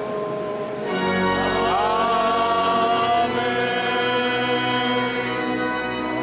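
A group of voices singing a slow hymn in a chant style, holding long notes; the singing swells up about a second in.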